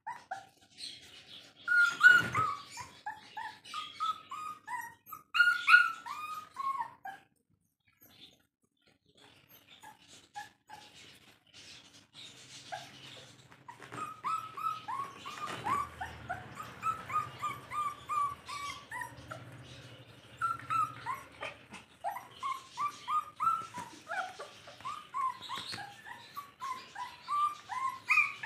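Rottweiler puppies giving quick runs of short, high-pitched calls that bend in pitch. There is a louder cry about two seconds in and a pause of a second or two about a quarter of the way through. The calling then grows busier again.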